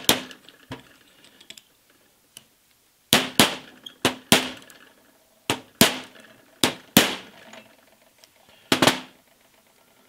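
Hammer tapping a pin punch to drive a new pivot pin into a collet closer locking dog: sharp metallic taps, mostly in quick pairs, spaced about a second apart after a quieter first few seconds.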